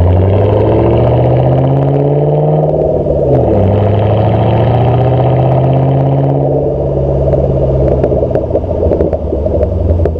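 2008 Ford Mustang GT's V8 exhaust through GT500KR/FR500S mufflers, heard at the tailpipe under acceleration: the revs climb, drop at an upshift about three seconds in, and climb again. Around two-thirds of the way through the throttle comes off and the note turns uneven, with some pops as the revs fall.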